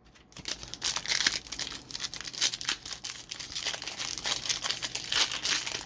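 Foil trading-card pack wrapper crinkling and tearing as it is ripped open and handled: a dense, continuous run of crackles starting a moment in.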